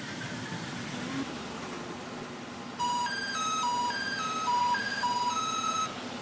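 Low steady rail and street noise, then, about three seconds in, a Meitetsu Panorama Super's musical horn plays a quick melody of short clear notes that step between three pitches and repeat.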